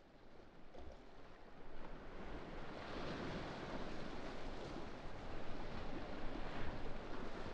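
Steady rushing wind-and-water noise, like waves and wind by open water, fading in from silence and slowly growing louder.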